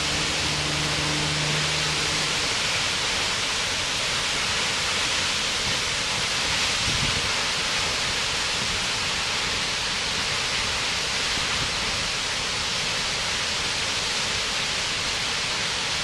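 Wailua Falls' twin streams plunging into their pool: a steady, even rushing roar of falling water.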